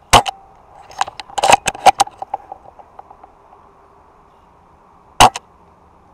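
Airsoft gunfire: a single sharp crack, then a quick clatter of cracks and clicks about a second in that dies away in small ticks, and another single crack near the end.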